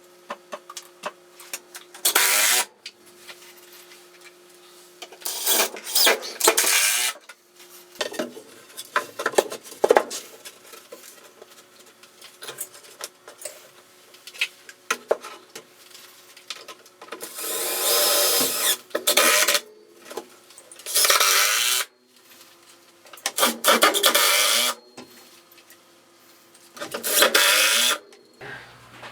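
Power drill driving screws into plywood in about six bursts of one to two seconds each, with clicks and handling knocks between them.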